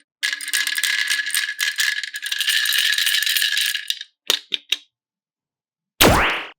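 Small hard pieces rattling densely for about four seconds, then a few separate clicks. Near the end comes a short, loud swooping sound.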